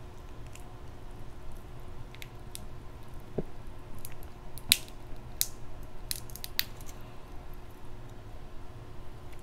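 Crab leg shells cracking and snapping as they are broken open by hand: scattered sharp clicks, the loudest about five seconds in, with soft wet squishing.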